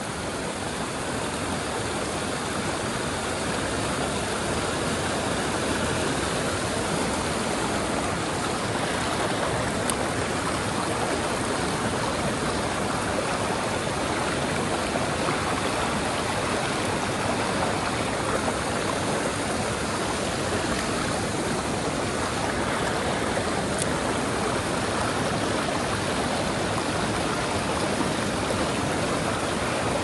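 Mountain stream water rushing in a steady, even wash.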